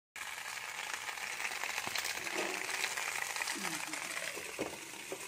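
Fish sizzling steadily on a banana leaf in a dry, oil-free pan. A few light clicks near the end as a glass lid is set on the pan.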